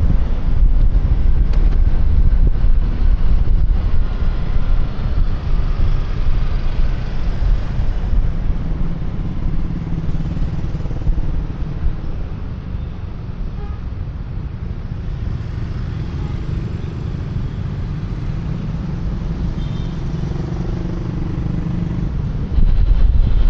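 Riding noise from a QJMotor Fortress 160 scooter: wind rushing over a helmet-clipped microphone with the engine and passing traffic underneath. The rush eases off about halfway through and comes back loud abruptly near the end.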